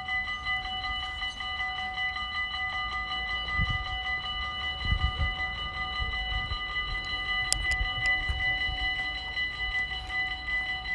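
Railway level crossing warning bell ringing steadily, with a faint low rumble underneath.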